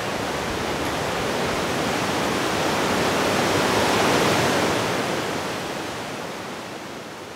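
Whitewater river rapids rushing in a steady, even noise. The sound grows a little louder about four seconds in, then fades away.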